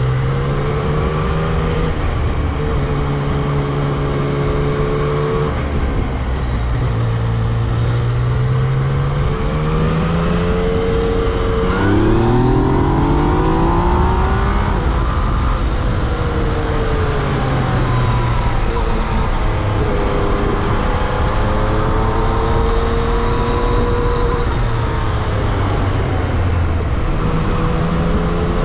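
Yamaha MT-09 SP's inline-three engine pulling under way. Its pitch rises in steps through the gears and drops back on the throttle, with a hard acceleration about twelve seconds in. Wind rush runs underneath throughout.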